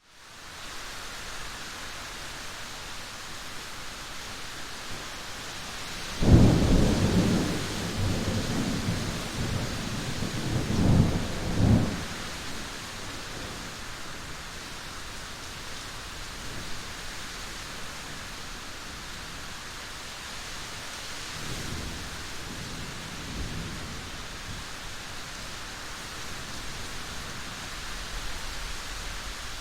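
Steady rain falling, with a loud roll of thunder breaking in suddenly about six seconds in and rumbling for several seconds, and a fainter, more distant rumble of thunder a little past twenty seconds.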